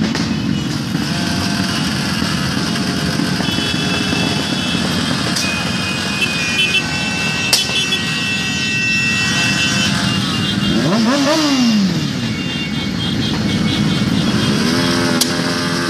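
Many motorcycle engines, mostly small street bikes, running together in a slow-moving pack. About eleven seconds in, one engine revs up and drops back.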